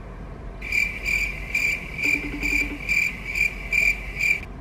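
Cricket chirps, about two a second, starting about half a second in and cutting off sharply near the end.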